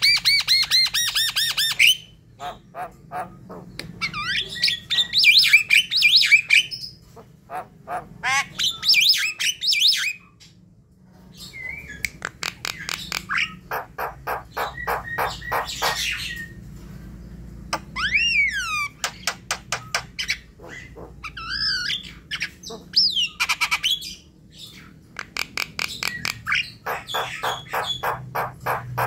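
Jalak kebo (Javan myna) singing a long, varied song. It runs fast rattling strings of harsh clicks and squawks, broken by short pauses, with a few whistled notes gliding up and down about two-thirds of the way through.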